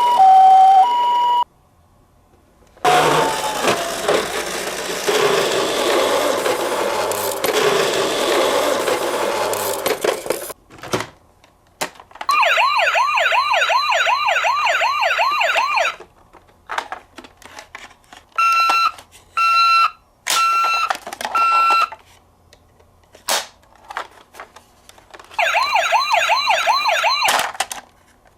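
Electronic siren sounds from toy emergency-vehicle minicars. First a two-tone high-low ambulance siren, then a long noisy stretch. After that comes a fast-warbling siren sweeping about three times a second, four short beeps, and the warbling siren again near the end.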